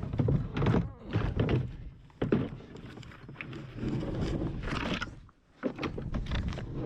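Irregular rustling, snapping and thuds of vines and branches being pulled off a fallen dead ash tree, with a sharp knock a little over two seconds in.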